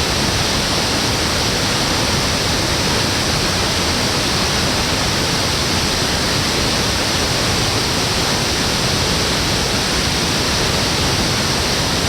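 Waterfall: falling water rushing as a steady, unbroken noise.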